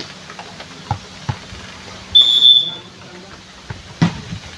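Referee's whistle blown once, a short steady blast about two seconds in, signalling the serve in a volleyball match. A few sharp knocks come around it, the sharpest about four seconds in.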